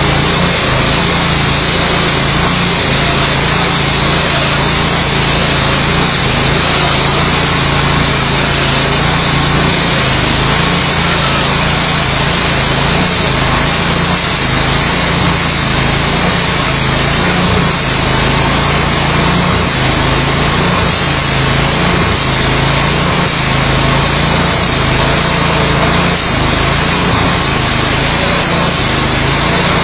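Petrol-engined 'New Rail Cutter' rail saw running under load, its abrasive cut-off wheel grinding through a steel rail. The sound is a loud, steady mix of small engine and grinding.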